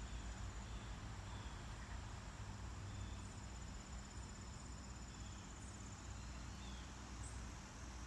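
Crickets trilling steadily at a high pitch, over a low steady rumble, with a few faint short high chirps now and then.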